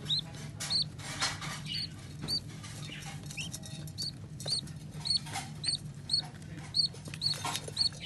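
Budgerigar chicks in a nest box cheeping to beg for food: short, high, squeaky cheeps repeated about twice a second, with rustling in the wood-shaving bedding and a low steady hum underneath.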